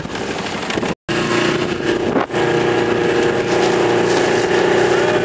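25 hp Mercury outboard motor running steadily at speed on a small bay boat, a steady droning hum over wind and water noise. The sound cuts out completely for a moment about a second in.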